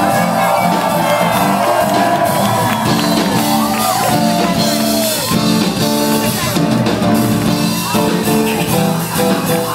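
Live band playing a hip-hop song loudly on drum kit, keyboards and electric bass, with sustained melody notes that bend in pitch.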